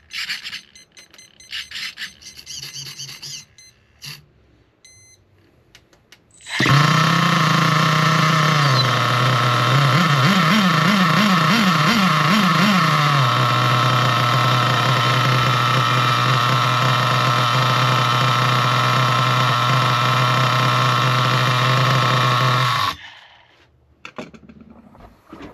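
Small two-stroke nitro glow engine of an RC car, with its low-speed needle richened back out. It starts up about six seconds in and runs loud and steady at a fast idle, with a few quick throttle blips about halfway through. It cuts off abruptly a couple of seconds before the end, after a few light clicks of handling at the start.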